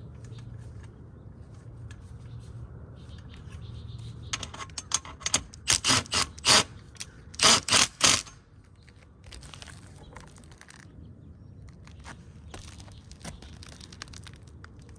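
A run of sharp clicks and scrapes from hand tools working grounding wire and metal fittings. They come in clusters between about four and eight seconds in, over a faint low hum.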